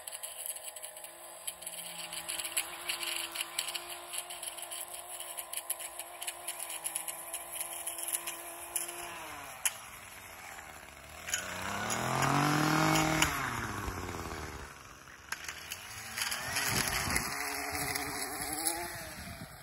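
Handheld two-stroke gas edger running while edging along a sidewalk: a steady engine note that drops in pitch about nine seconds in, then louder revs that rise and fall, about eleven seconds in and again near the end.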